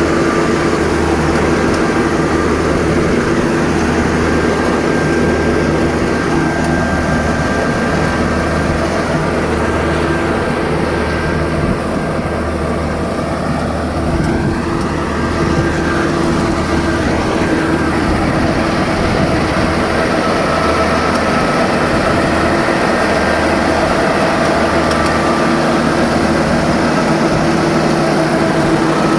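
GAM combine harvester running steadily at work: engine and threshing machinery give a continuous loud drone with a steady hum.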